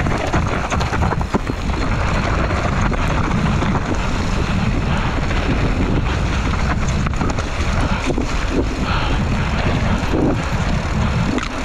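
Wind buffeting the microphone of a bike-mounted camera during a fast mountain bike descent, with knobby tyres rolling over dirt and the bike clattering and rattling over bumps.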